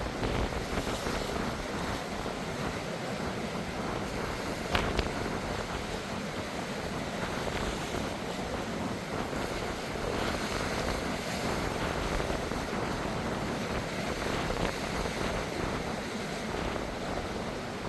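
Strong wind buffeting the microphone over the wash of sea surf, a steady rough noise with one sharp click about five seconds in.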